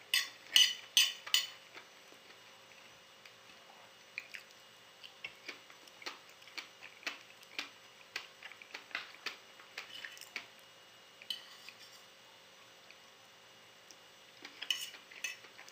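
Metal fork clinking and scraping on a plate while picking up rice, with a few loud clinks in the first second and a half, lighter scattered taps after, and another small cluster near the end.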